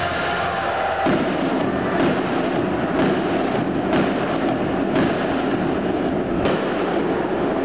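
Fireworks bursting inside a domed baseball stadium: a sharp bang about once a second over a dense, steady noise that starts about a second in.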